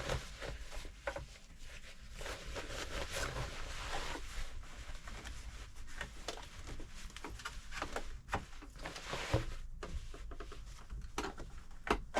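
Denim jeans being handled and shifted about, fabric rustling, with scattered light clicks and taps.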